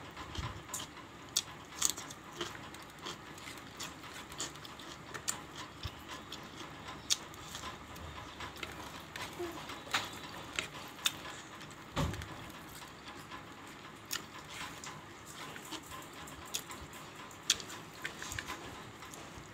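Close-up eating sounds of rice and curry eaten by hand: irregular wet smacks and clicks of chewing and lips, with soft rustle of fingers mixing rice on the plate. A dull knock comes about twelve seconds in.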